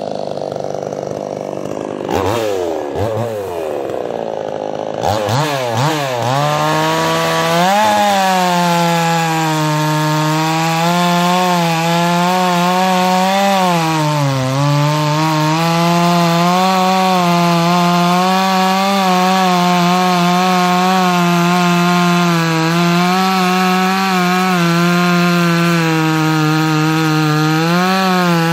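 Two-stroke chainsaw blipped a few times, then held at full throttle while cutting through wood. The engine note sags at about the halfway point as the chain bites, then recovers and holds steady with small wavers under load.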